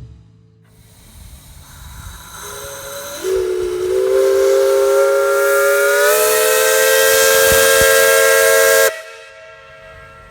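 Steam whistle on a Minneapolis steam traction engine: a hiss of steam builds, then one long blast of several notes sounding together. The blast rises slightly in pitch partway through and cuts off suddenly near the end.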